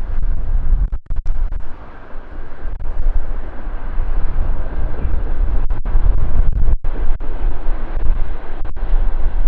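Freight train's hopper wagons rolling past: a continuous low rumble of wheels on rail, rising and falling in level.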